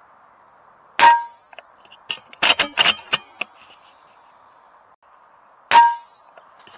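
Two sharp air-rifle shots from a sub-12 ft-lb AGT Uragan 2, one about a second in and one near the end, each with a short metallic ring. A quick run of clicks and rattles falls between them.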